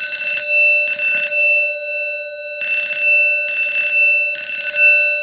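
Edwards Durabell 6100D 6-inch vibrating fire alarm bell ringing in a fast temporal code-3 pattern of short half-second rings: two rings close one group, then after a pause a full group of three. A steady electronic buzzer tone from the fire alarm panel sounds underneath throughout.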